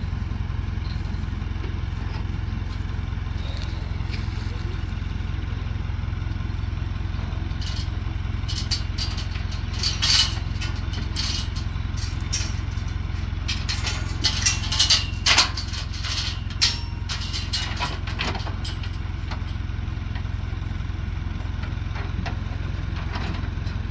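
A motor vehicle running with a steady low drone, with bursts of rattling and clatter about ten seconds in and again a few seconds later.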